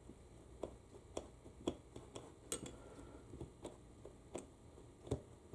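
Light, irregular clicks and taps, about ten of them, as small valve parts and a pick are worked against the valve body of a U140 automatic transmission during teardown.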